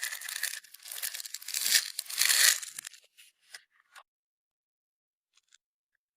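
Clear slime being kneaded and pulled by hand, giving a dense sticky crackle for about three seconds, loudest near the middle, then a few faint clicks before it goes quiet.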